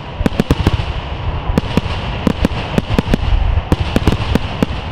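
Aerial fireworks display: a rapid, irregular string of sharp bangs and cracks, about four a second, over a continuous low rumble of bursting shells.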